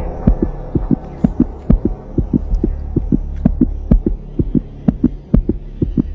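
Soundtrack beat of low, rhythmic thumps, about three to four a second, over a steady low hum.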